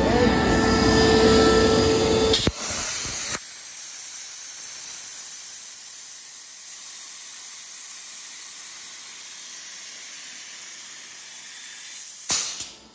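An Atlas Copco GA11 FF rotary screw air compressor runs for the first couple of seconds. Then compressed air blows out of the valve at the bottom of its receiver tank as a steady, high hiss for about nine seconds, releasing tank pressure. The hiss stops suddenly near the end.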